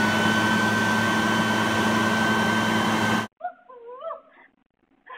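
A leaf blower running at full speed, a loud rush of air with a steady whine, cut off abruptly about three seconds in. A few short, faint sounds with a wavering pitch follow.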